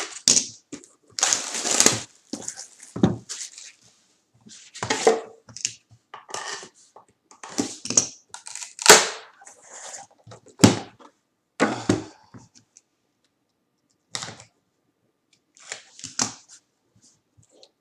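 Plastic shrink-wrap and foil wrapping crinkled and torn while a cardboard trading-card box is opened and its packs handled: irregular bursts of crackling and rustling with short pauses, sparser near the end.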